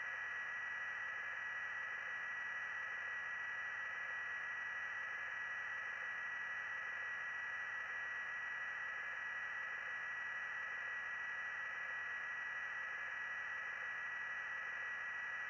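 Steady hiss with a constant high tone and no voices: open radio channel noise in the gap between police radio transmissions.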